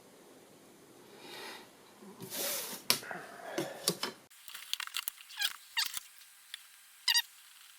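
Pen strokes scratching and squeaking on paper while a plan is sketched, in short irregular strokes with a louder squeak about seven seconds in.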